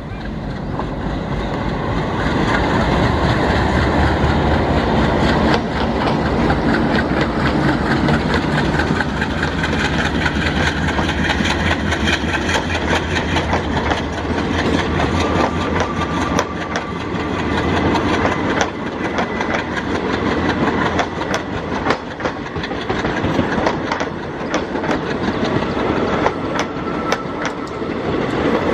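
Two ALCo-design WDM3A diesel locomotives working hard at the head of a passenger train as they pass close by, their engines loud and deep. After about the middle the engine sound fades and the coaches follow with a rapid clickety-clack of wheels over the rail joints.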